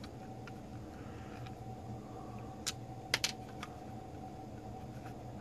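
A few sharp clicks and taps of a metal pick and spudger working at the black plastic case of a Duracell NiMH battery charger as it is pried open, the loudest three coming close together about three seconds in.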